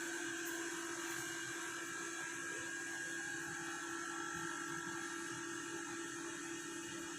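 A steady, even hum with a higher whine above it and a faint hiss underneath, unchanging throughout, like a small motor or electrical appliance running.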